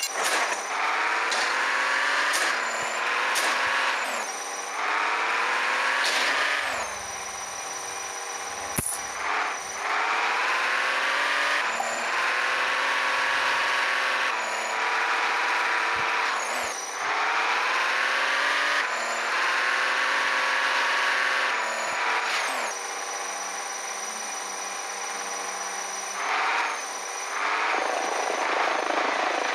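Whine of small electric toy motors, rising in pitch and then dropping sharply, over and over about every six seconds.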